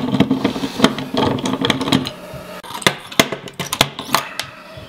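Irregular small metallic clicks and taps from a screwdriver and loose parts on a hard disk drive being taken apart by hand. A low steady hum runs underneath for the first two seconds.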